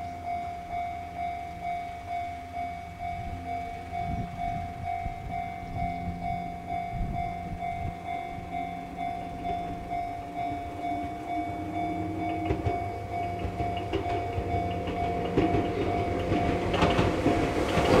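Enoden level-crossing warning bell ringing its regular kan-kan clang. An Enoden train's motors and wheels grow louder over the last few seconds as it approaches.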